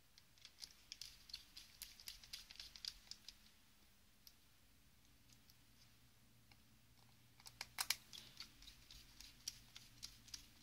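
Precision screwdriver driving the small corner screws into a BlackBerry 957's plastic back cover: faint quick clicks and ticks in two bursts of about three seconds each, with a pause between.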